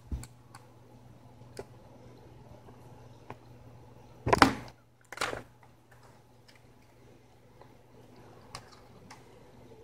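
Faint clicks and taps of an M.2 SSD and small parts being handled and fitted into a laptop, with two short, louder scraping noises about four and five seconds in.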